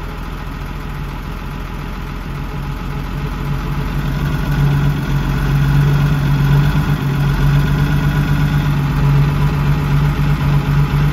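Camper truck's engine running at raised revs, growing louder over the first few seconds and then held steady, while the alternator's charging output is checked.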